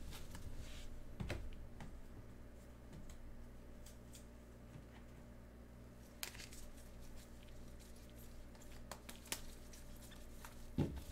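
Trading cards being handled and sorted: a few soft clicks and light rustles of cards, with a low steady hum underneath.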